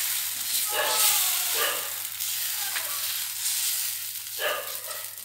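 Tapioca adai batter sizzling on a hot cast-iron tawa with a steady hiss, as a steel ladle spreads it across the pan.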